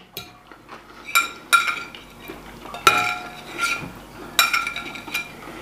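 Forks and knives clinking on plates as two people eat: several sharp clinks, each with a short ring.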